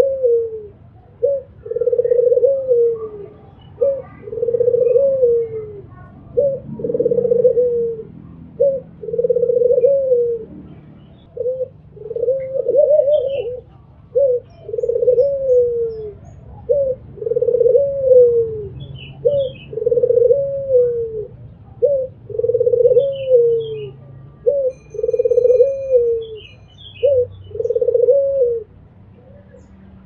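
Albino ringneck dove (puter) cooing over and over: each call a short note followed by a longer coo that falls at its end, repeated about every two seconds and stopping shortly before the end. Faint high chirps now and then.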